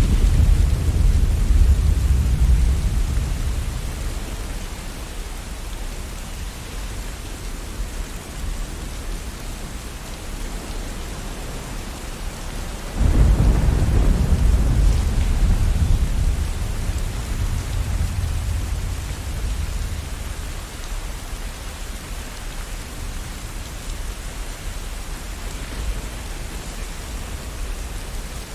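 Steady rain falling through a thunderstorm. A rumble of thunder fades away at the start, and about halfway through a sudden, loud thunderclap rolls into a long low rumble that slowly dies out.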